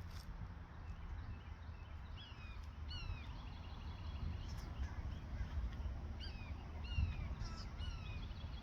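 Bald eagle calling: a run of short, high, thin piping notes that fall in pitch, starting about two seconds in and repeating to near the end, mixed with crows' cries. A steady low rumble lies underneath.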